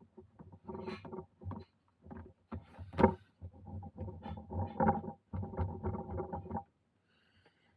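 Wet veg-tan leather being worked by hand, with irregular creaking and rubbing and a sharp knock about three seconds in. It stops shortly before the end.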